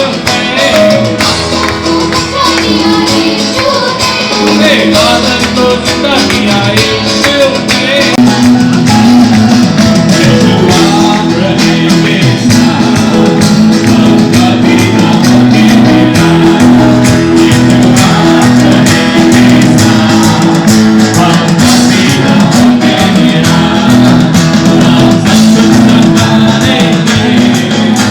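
Loud music with a steady beat and percussion, with some singing.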